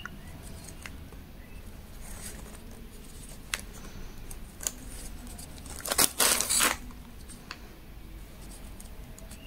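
Crochet handling sounds: the hook and cotton yarn being worked through stitches, with a few small clicks and a louder rustle of the piece being handled about six seconds in.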